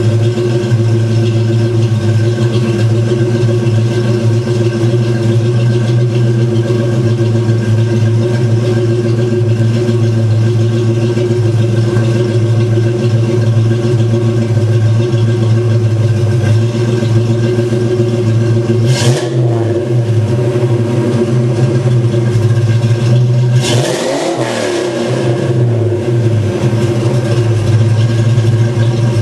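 1995 Ford Mustang GT's 5.0-litre (302) V8 idling steadily through a Flowmaster exhaust, with two short throttle blips, one about two-thirds of the way through and a second a few seconds later.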